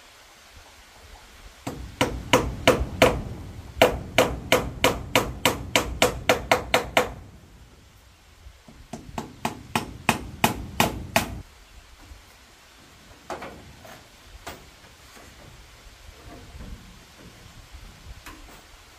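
Hammer blows on bamboo framing: two runs of quick, sharp strikes at about four a second, the first about five seconds long and the second about two and a half, followed by two single blows.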